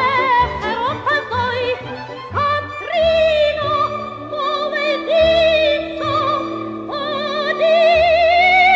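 A woman singing in a trained concert voice with wide vibrato, holding long notes over instrumental accompaniment with low bass notes. Near the end she rises to a long held note, the loudest of the passage.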